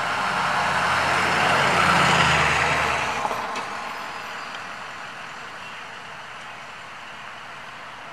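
A motor vehicle passing by: engine and tyre noise swell to a peak about two seconds in, then fade away by about four seconds. A steady, quieter background hiss is left.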